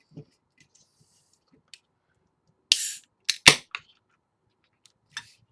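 A 16-ounce aluminium beer can being opened by its pull tab: a short hiss of escaping gas about halfway through, followed at once by two or three sharp clicks of the tab.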